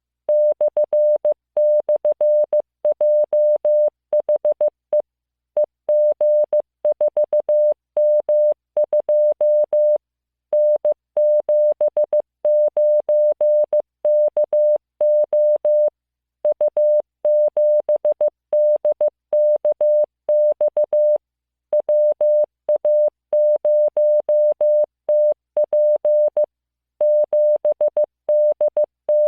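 Morse code practice tone: a single steady beep keyed on and off in short dots and longer dashes, sending random five-character code groups, each group followed by a short pause, about every five seconds.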